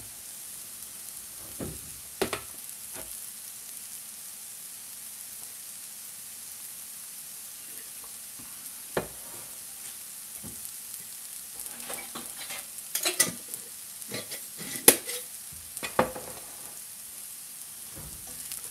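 Sliced mushrooms frying in butter and oil over high heat: a steady sizzle with scattered sharp pops and crackles of spattering fat, several coming close together about two-thirds of the way through.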